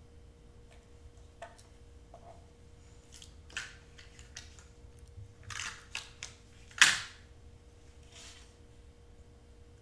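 Hands handling cardstock pieces and a glue tape runner on a cutting mat: a run of light rustles and scrapes, then one sharp tap about seven seconds in.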